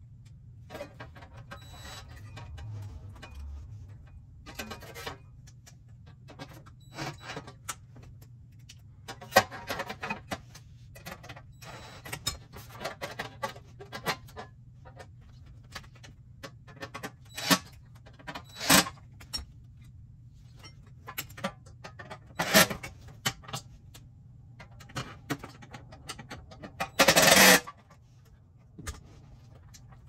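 Scattered clicks, clanks and scrapes of hand tools and sheet-metal parts being handled while a dehumidifier's blower bracket is unbolted and bent. There is one louder burst of under a second near the end.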